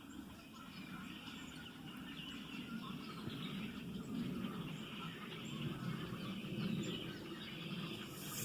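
A large flock of birds chirping and calling all at once, a dense, continuous chorus of many overlapping chirps.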